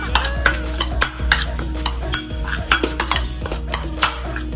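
A metal fork stirring an oily marinade of chopped garlic and herbs in a ceramic bowl, clicking and scraping against the bowl in quick, irregular strokes.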